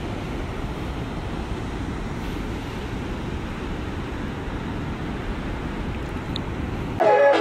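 Steady rush of ocean surf breaking on a beach, mixed with wind rumbling on the microphone. Music cuts in suddenly near the end, louder than the surf.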